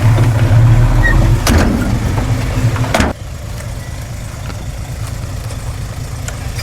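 Heavy diesel engine of earthmoving machinery running steadily, with two clanks about a second and a half apart. About three seconds in, the sound drops abruptly to a quieter engine hum.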